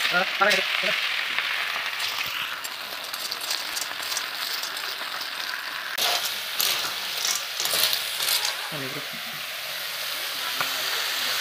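Water snails in their shells frying with a steady sizzle in a hot iron kadhai. A metal ladle stirs through them about six seconds in, with a run of scrapes and clicks until about eight seconds in.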